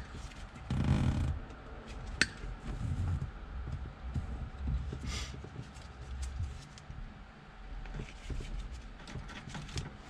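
Wire cutters snipping through the old turn signal switch wiring: a sharp snip at the start and another about two seconds in, with low handling and rustling noise between.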